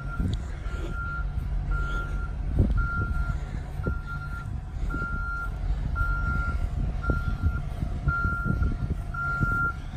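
A truck warning beeper sounding steadily, about one beep every 0.8 s, over the truck's engine running to drive the hydraulics while the chipper dump bed of a 2008 GMC forestry bucket truck is raised. Now and then a faint knock is heard.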